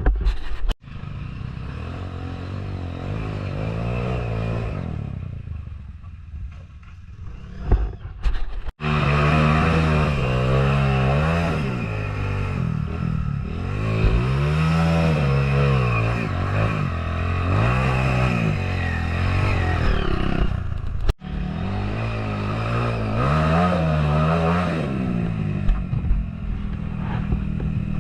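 Dirt bike engine revving up and down over and over as the rider works the throttle on an off-road trail climb, with some clattering.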